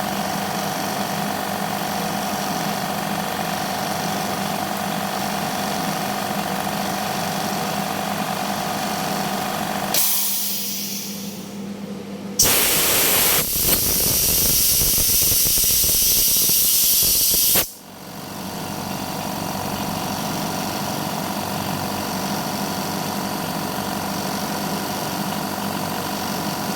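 Oil-free air compressor motor running with a steady hum. About ten seconds in it cuts off with a short fading hiss. A few seconds later comes a loud rush of air lasting about five seconds, then the compressor starts again and settles back to a steady run.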